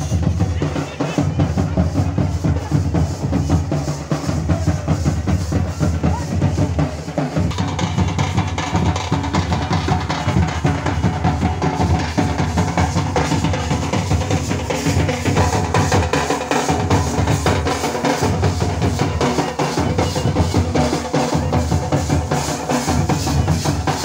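Marching drum band playing a steady, driving beat, with bass drum and snare drum prominent.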